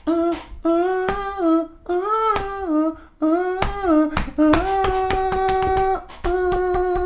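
Beatbox humming: a hummed melody in short phrases rising and falling in steps, with sharp beatboxed percussion clicks cutting through it and a long held note about halfway through.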